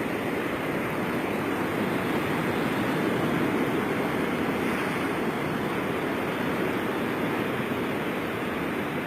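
Ocean surf breaking and washing up a sandy beach: a steady rush that swells a little a few seconds in.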